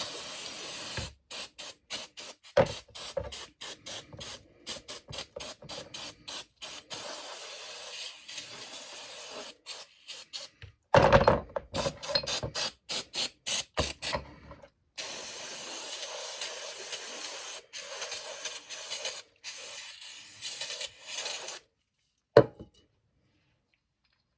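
Aerosol degreaser sprayed onto motorcycle rear brake parts to clean off old grease and grime. It comes in many short hissing bursts, then a longer spray of several seconds. A single sharp knock sounds near the end.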